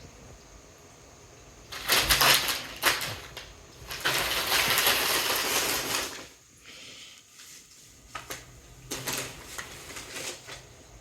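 Packaging being crinkled and rustled by cats playing in it, in irregular bursts: a loud crackle about two seconds in, a longer run of rustling from about four to six seconds, then a few shorter rustles near the end.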